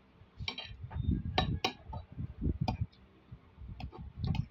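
Metal spoon and fork clinking and scraping against a plate of rice, with half a dozen sharp clinks, over close-up chewing.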